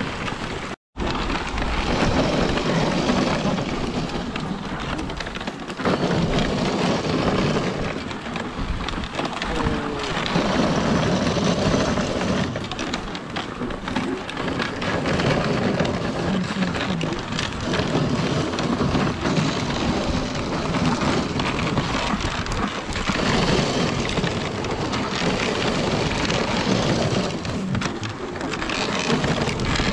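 Dog sled runners scraping and hissing over packed snow while the team pulls the sled along, heard as a steady, noisy rush with wind buffeting the microphone. The sound cuts out for a moment about a second in.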